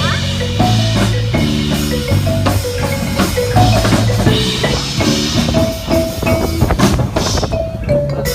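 Marimbas playing an up-tempo pop melody in mallet strokes over a bass line and a drum-kit beat.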